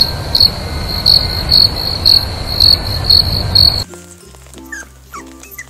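Crickets chirping as a night-time ambience, a shrill high chirp repeating about twice a second over a low hiss. It cuts off suddenly about four seconds in, and light music takes over.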